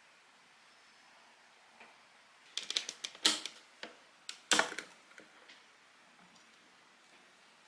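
A quiet stretch, then, about two and a half seconds in, a cluster of sharp plastic clicks and knocks, the two loudest about a second apart, as the ground-coffee container is worked loose and slid out of the base of a conical burr grinder.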